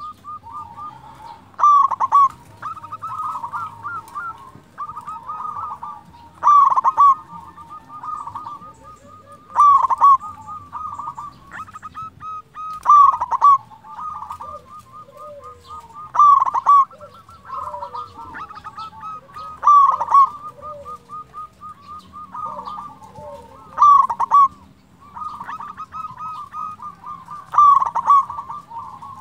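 Zebra dove (perkutut) cooing: a loud phrase every three to four seconds, with quick runs of short staccato notes in between.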